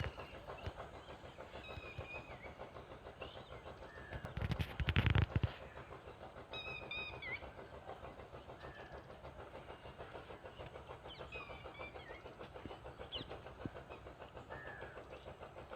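Short high bird chirps and whistled glides now and then over a steady, fast rhythmic clatter, with a loud rushing burst about four seconds in that lasts a little over a second.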